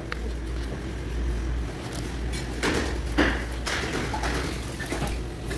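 A plastic food bag rustling and crinkling in a few bursts while shrimp and corn in sauce are handled inside it, over a steady low hum.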